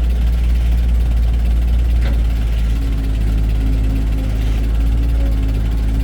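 Heavy diesel engine of an excavator or dump truck running steadily with a deep, even rumble, and a brief click about two seconds in.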